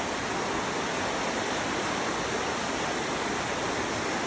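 Rushing river: water flowing with a steady, even rush.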